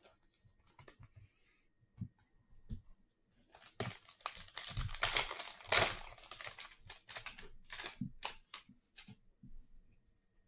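Trading cards and their packaging being handled at close range: light clicks and short bursts of rustling and crinkling, busiest in the middle.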